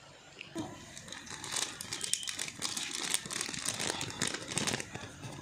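Packaging material crinkling and rustling as it is handled, a dense run of small crackles starting about half a second in.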